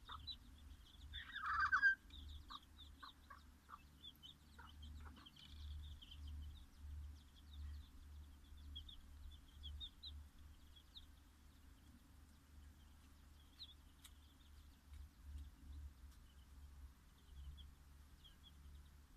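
Dutch bantam hen giving one loud cluck about a second and a half in. Bantam chicks peep in short, high chirps on and off throughout.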